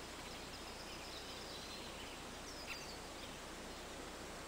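Faint, steady outdoor background noise, with a few faint, high, short chirps.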